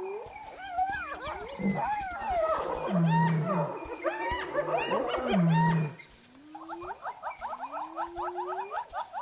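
Spotted hyenas calling around a kill: a dense chorus of high giggling and squealing calls mixed with a few short low calls for about six seconds, then repeated rising whoops over a rapid chattering series.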